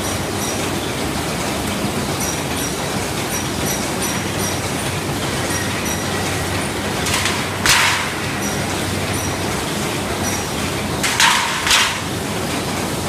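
Ham sausage machine running with a steady mechanical noise and a light ticking that repeats at even spacing. Two short hisses sound over it, about seven seconds in and again, doubled, about eleven seconds in.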